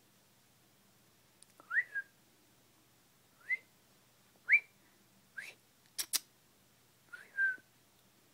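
A squeaky toy piglet being chewed by a dog, giving about five short squeaks that each rise quickly in pitch, with two sharp clicks in quick succession about six seconds in.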